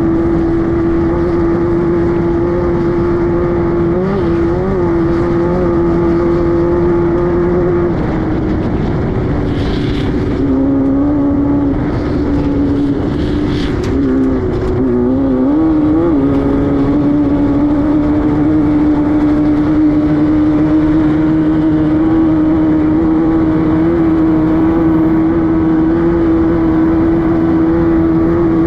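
Class 5-1600 off-road race car's air-cooled 1600 cc VW flat-four running hard at steady high revs. Around the middle the engine note drops and wavers for several seconds, with a few sharp knocks, then climbs back to its steady pitch.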